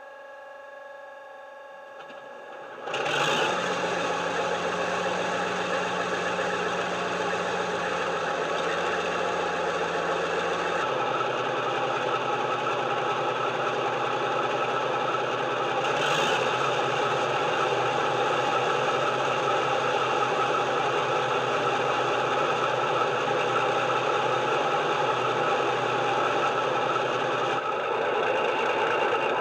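A Dapol model Class 52 Western locomotive's sound decoder playing the SWD Western diesel sound through its EM1 speaker: a faint steady hum, then about three seconds in the engine starts up suddenly and settles into a steady running sound, with a brief burst about sixteen seconds in.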